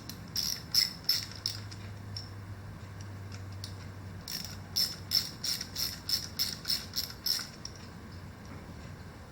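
Ratchet wrench clicking in two runs of quick, even clicks as the 8mm bolt holding the brake pads in a Honda ADV150's front caliper is backed out.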